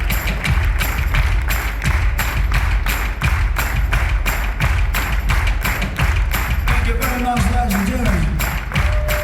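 Live music with a steady beat of about four hits a second over deep thumps, such as a drum kit keeping time on stage. A voice speaks briefly near the end.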